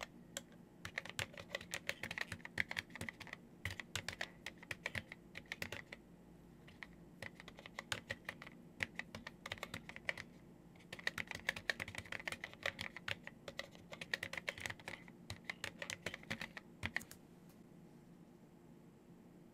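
Typing on an Epson HC-20's SMK linear mechanical key switches, stiff keys that bottom out at about 100 g, in rapid runs of clacking keystrokes. There are pauses around six and ten seconds in, and the typing stops about two seconds before the end.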